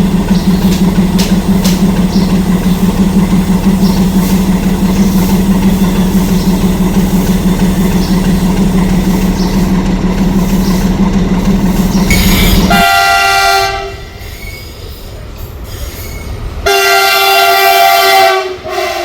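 A train running with a steady low hum and a rapid, regular beat. About 13 s in, this gives way abruptly to a locomotive air horn: one blast that fades over a few seconds, then a second blast of about two seconds near the end.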